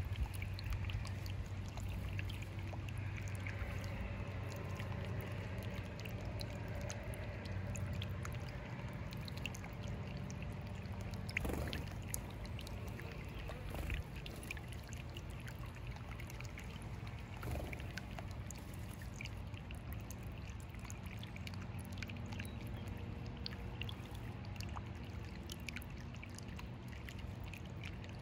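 Small birdbath fountain trickling and bubbling over the stones, with a steady low hum under it. House sparrows chirp and splash in the first part.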